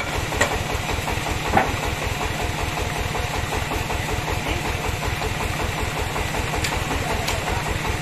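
Band sawmill running steadily with a fast, even, low throb, idling with no cut in the wood. A few short knocks sound over it, about half a second in, at a second and a half, and twice near the end.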